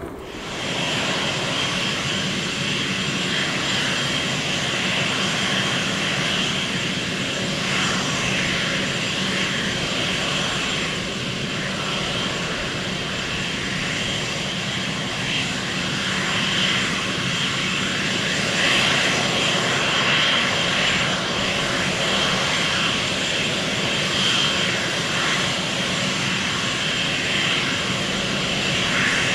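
Twin-engine jet airliner on final approach, its engines giving a steady rushing roar with faint held tones mixed in.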